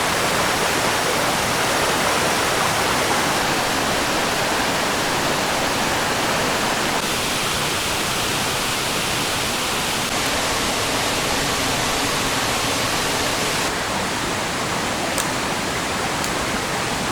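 Water of a small stream rushing steadily. Its tone changes abruptly a few times.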